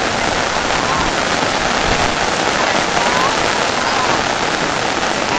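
Heavy rain falling, a steady, dense hiss without let-up.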